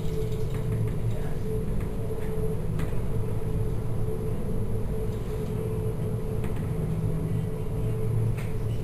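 Steady low rumble and hum of a container ship's machinery under way at sea, with a constant mid-pitched drone and a few faint ticks and rattles.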